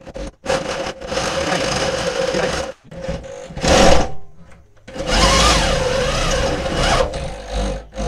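Electric drill running a large twist bit through the steel of a motorcycle frame, boring out the swingarm pivot hole. The drill runs in several bursts of one to two seconds with short stops between, a steady motor whine over the grinding of the cut.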